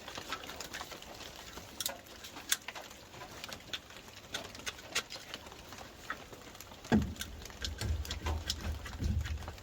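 Irregular light clicks and ticks, then from about seven seconds in a run of dull low thuds.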